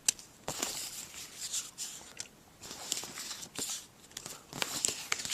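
Paper stickers being handled and leafed through by hand: irregular rustling and crinkling in short bursts, with a sharp tap at the start.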